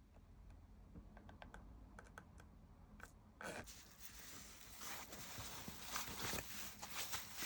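Typing on a Direya DK98SE budget mechanical keyboard: a few separate key clicks at first, then faster, denser clacking from about halfway.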